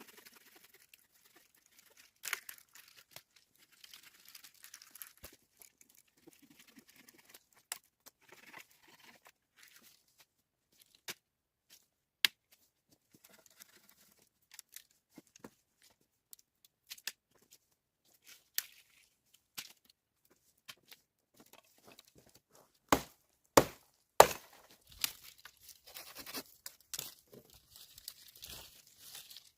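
Hands-on handling noises: intermittent rustling and crackling with scattered sharp snaps or knocks, and a cluster of louder ones near the end.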